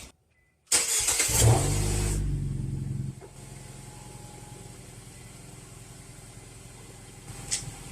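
2011 Nissan Cube's four-cylinder engine starting up, about a second in, with a brief loud high-idle flare, then dropping after a couple of seconds to a steady, quieter idle. The freshly welded exhaust resonator flange shows no exhaust leak.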